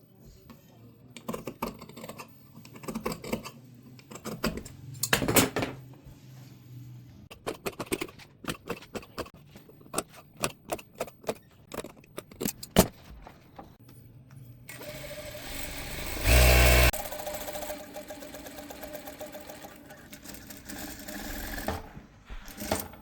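Scattered clicks and knocks of handling for the first part, then an electric sewing machine running steadily from about fifteen seconds in, with one brief much louder stretch shortly after it starts.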